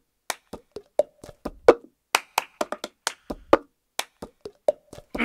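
A cup-game rhythm of hand claps and sharp cup taps, played without singing, with a few low thuds among the hits.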